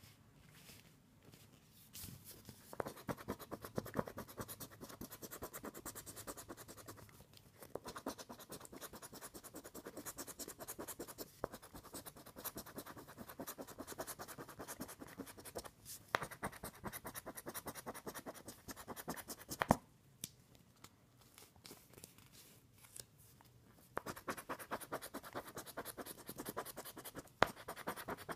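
Scratch-off lottery ticket being scratched off by hand: rapid, continuous scraping strokes over the coated play areas in long runs, with brief pauses between them.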